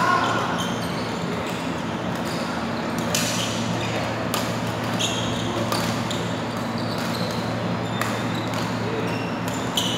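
Badminton rally: a string of sharp, irregular racket strikes on the shuttlecock, over a steady low hum.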